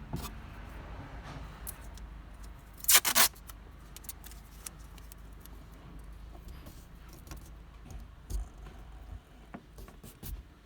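Hands working masking tape: a brief rustling scrape in two quick pulses about three seconds in, then a few light clicks and taps.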